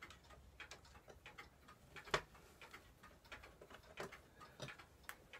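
Faint ticking and light metallic clicks, with one sharper click about two seconds in. The sounds come from a screwdriver backing the screws out of the escapement bridge of a hand-made brass tall case clock movement, over the ticking of clocks in a clock-repair shop.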